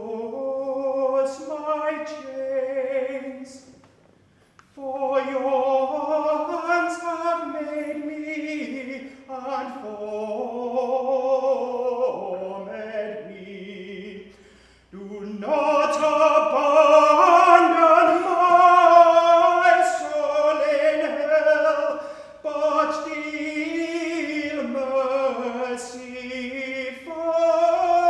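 A solo male voice singing a slow, unaccompanied chant, holding long notes with vibrato in phrases broken by short breaths; it grows louder about halfway through.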